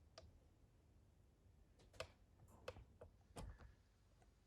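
Near silence: workshop room tone with four faint, short clicks or taps, one just after the start and three more in the second half.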